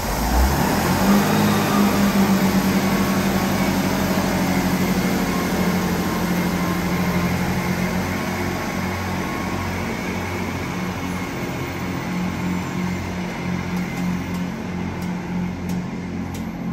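Class 158 diesel multiple unit pulling away: its underfloor diesel engines open up about half a second in with a steady engine note, which slowly fades as the train draws off.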